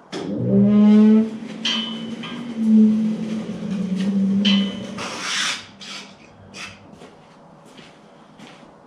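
Heavy lathe being shifted on its moving wheels: a low, steady groaning squeal under the load for about four and a half seconds. Two sharp metallic clinks come in it, and a few light knocks follow.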